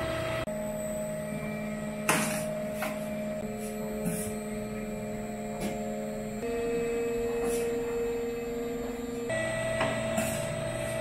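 Dough-sheeting machine running with a steady motor hum as a noodle dough sheet feeds through its rollers and winds onto a roll. The hum's pitch shifts a few times, and a few light knocks come through.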